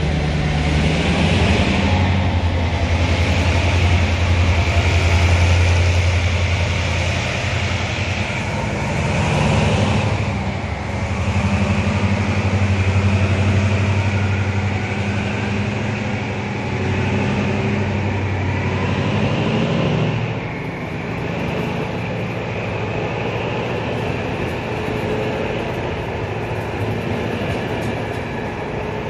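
Diesel-electric shunting locomotive DE 22015 hauling a passenger train: a steady low engine drone with the hiss of wheels on rail. The engine note shifts about ten seconds in and falls back about twenty seconds in.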